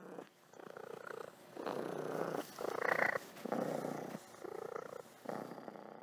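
A domestic cat purring close to the microphone, the purr swelling and easing with each breath about once a second.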